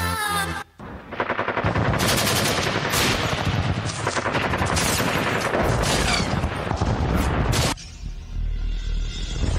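Recorded machine-gun fire played over stage loudspeakers as part of a dance soundtrack: rapid, dense shots start just after the music cuts off and stop abruptly about two seconds before the end, leaving a low hum.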